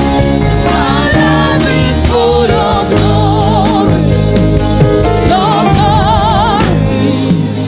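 Gospel worship music: instrumental accompaniment under a solo voice singing drawn-out, wordless notes with wide vibrato.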